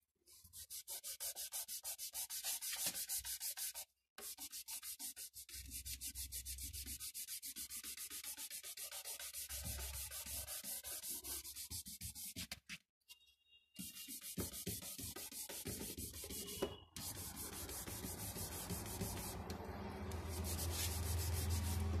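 Fingertips rubbing pastel into paper to blend it: quick back-and-forth strokes, several a second, stopping briefly twice. Near the end the strokes give way to a steadier rustle with a low hum.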